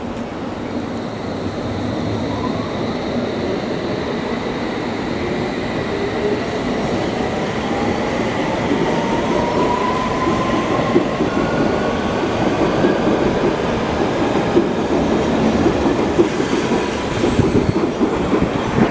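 London Underground S Stock train accelerating away from the platform, its motors giving a whine that rises in pitch over the running rumble. The sound grows louder throughout, with short sharp knocks from the wheels in the second half.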